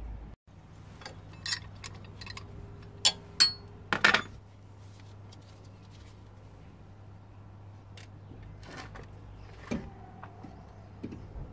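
A handful of sharp metallic clinks and knocks as a front brake caliper is handled and lifted off its bracket, the loudest coming about three to four seconds in and one more near the end. A steady low hum runs underneath.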